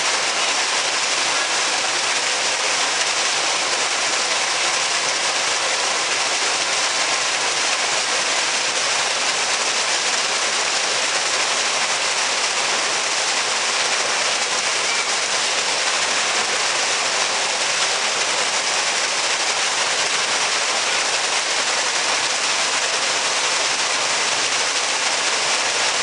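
Small waterfall pouring onto rocks and a pool, splashing steadily without a break.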